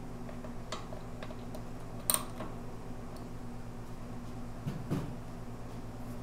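Small metallic clicks and taps of hands working small bolts loose on a motorcycle's speedometer cluster, with one sharper click about two seconds in and a duller knock near five seconds, over a steady low hum.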